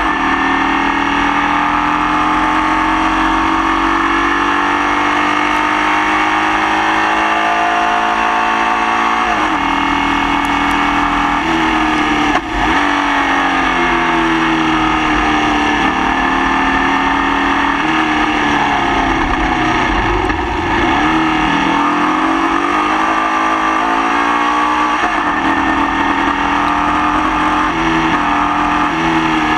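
Onboard sound of a Formula Vee race car's Volkswagen air-cooled flat-four engine running under load and rising in pitch, with gear changes about 9 and 12 seconds in. The revs fall for several seconds as it slows, then climb again with another shift near the end. The engine is running with a misfire.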